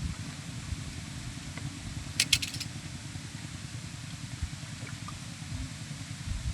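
Wind rumbling on the microphone, with a quick run of sharp clicks a little over two seconds in.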